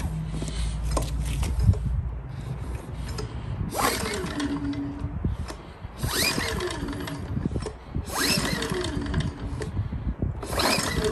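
Recoil pull-starter of a Firman W2000i 80cc inverter generator, yanked four times about every two seconds for a cold start on choke. Each pull gives a rasping whir that falls in pitch as the engine spins down without catching.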